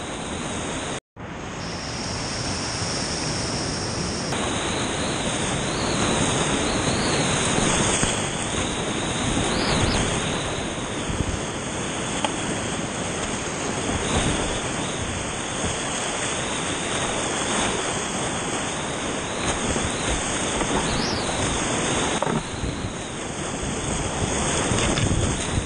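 Steady rush of whitewater rapids heard from a kayak running them, with splashing and wind on the microphone. The sound cuts out for an instant about a second in.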